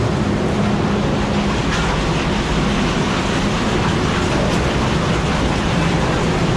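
Oxbo 8430 self-propelled ear corn picker running at work: a loud, steady mechanical din with a low engine hum underneath.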